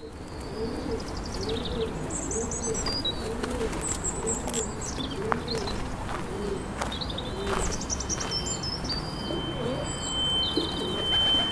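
Pigeons cooing and small birds chirping over a busy background, with a few sharp clicks. About six seconds in, a steady high whine enters and grows louder until everything cuts off at the end.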